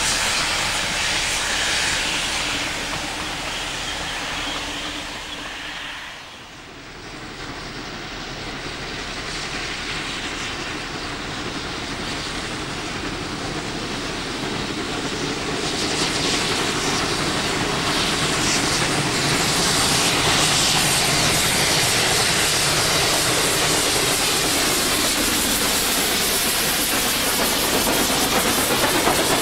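A passing train's carriages, fading away about six seconds in; then two steam locomotives, 2705 and 3642, double-heading a test load, their steam hissing and running noise growing louder from about halfway as they come by.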